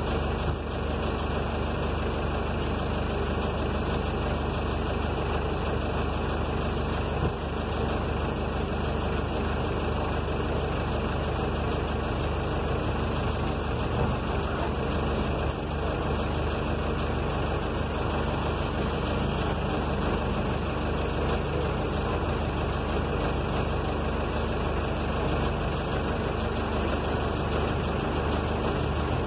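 City bus's diesel engine idling steadily, heard from inside the driver's cab while the bus stands in traffic.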